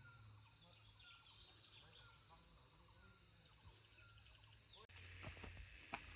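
Steady high-pitched insect chorus in open fields at dusk, with short repeated chirps below it. It cuts off suddenly about five seconds in, and a few sharp knocks follow.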